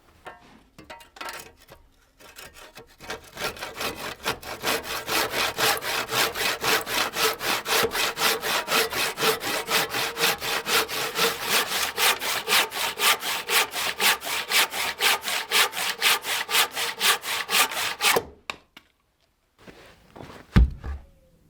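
Hand saw cutting through thick seasoned oak in fast, even back-and-forth strokes, about three or four a second, stopping abruptly near the end. A single heavy thump follows a couple of seconds later.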